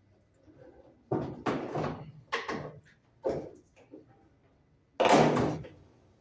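A series of knocks and clunks from the washing machine's cover and casing being handled as it is taken apart, loudest in one sharp clunk about five seconds in.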